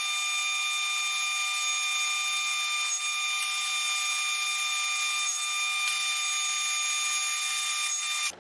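SawStop table saw running with a steady, high-pitched whine, thin-sounding with no low end, which cuts off abruptly near the end.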